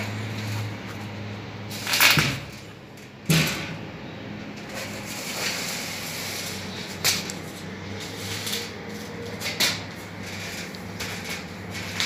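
A steady low hum under a few sharp knocks and clatters. The two loudest knocks come about two and three seconds in, and lighter ones follow later.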